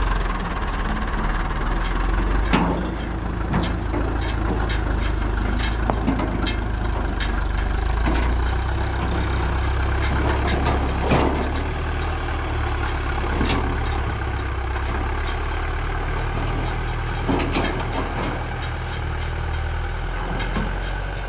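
An engine running steadily at a low idle, with short scattered clicks and knocks over it.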